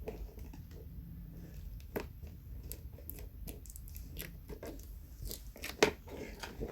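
Cardboard and plastic packaging of a toy figure being handled and pulled open: scattered crinkles, small snaps and rustles, with a few louder ones near the end.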